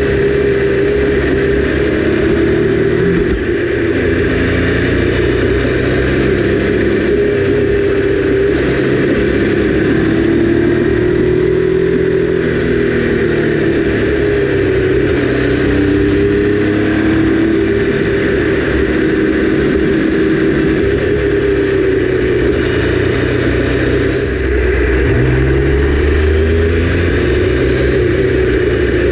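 Triumph Daytona 955i's inline three-cylinder engine running at road speed, its pitch slowly rising and falling with the throttle, under steady wind rush on a camera mounted behind the windscreen.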